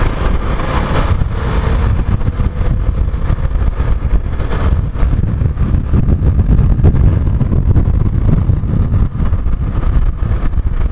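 Motorcycle on the move, gathering speed, with a steady low rumble of wind and engine on the rider's camera microphone.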